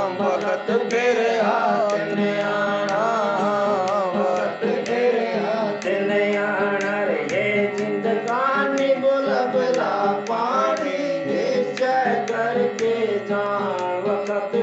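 A man sings a Hindi devotional shabad into a microphone, the melody wavering and ornamented, over steady held accompanying tones. Regular percussion strokes keep the beat.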